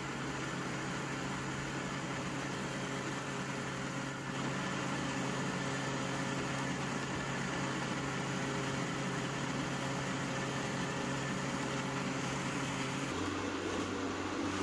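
Electric countertop blender running steadily, its motor humming and the blades churning green chilies, bell peppers and spring onions into a purée. The hum drops to a lower pitch near the end.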